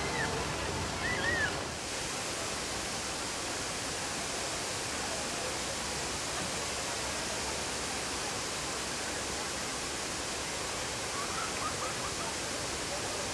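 Fountain water jets rushing and splashing in a steady, even hiss, with faint voices of people around it.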